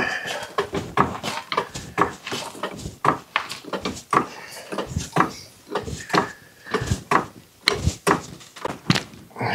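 Irregular metallic clicks and knocks, about two to three a second, from a long-handled ratchet and socket being worked on a car wheel's lug nuts.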